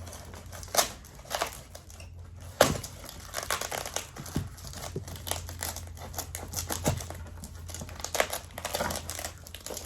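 Plant-shipping packaging crinkling and tearing as it is cut and pulled open, in irregular rustles and sharp crackles.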